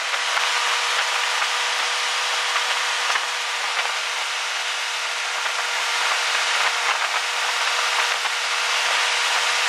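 Steady rush of wind and water heard from the back of a tow boat at barefoot-skiing speed, with the boat's engine humming underneath.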